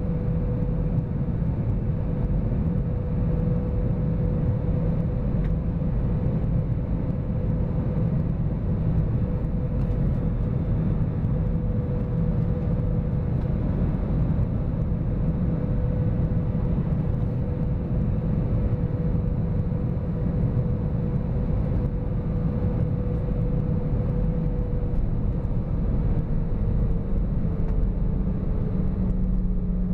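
Cabin noise inside an Airbus A320-200 on final approach: a steady rush of airflow and hum from the turbofan engines, with a steady whine that drops slightly in pitch in the last few seconds as the aircraft comes down over the runway.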